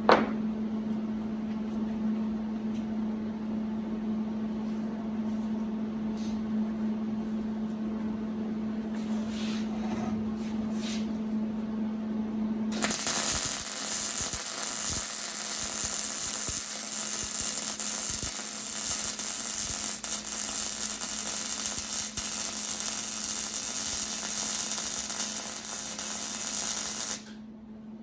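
A steady electrical hum for about the first half, then a continuous welding arc crackling and hissing on a steel crossmember for about fourteen seconds, cutting off suddenly near the end.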